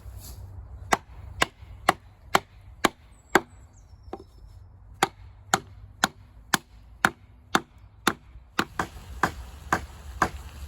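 Wood being chopped: sharp strokes of a blade into wood, about two a second, in three runs with short pauses between.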